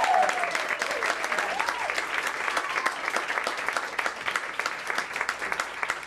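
Audience applauding, with a couple of cheering whoops in the first two seconds and the clapping slowly thinning out toward the end.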